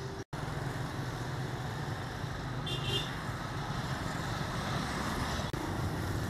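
Street traffic noise: a steady mix of motorbike and car engines and road hiss, with a short high-pitched beep about three seconds in.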